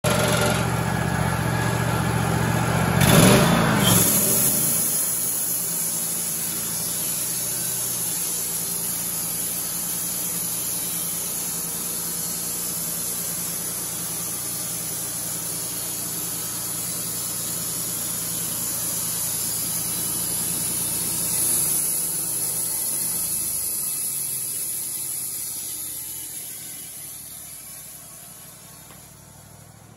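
Wood-Mizer LT35 portable bandsaw mill running, its band blade sawing a cedar cant into clapboard siding: a steady engine note under a hiss of cutting. It swells briefly about three seconds in and dies down over the last few seconds.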